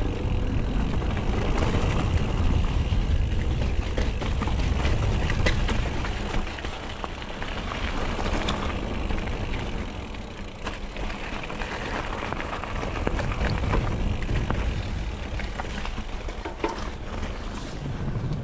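Mountain bike riding down a dirt trail: wind buffeting the action camera's microphone over tyre noise, with scattered knocks and rattles from the bike. The wind rumble eases about six seconds in.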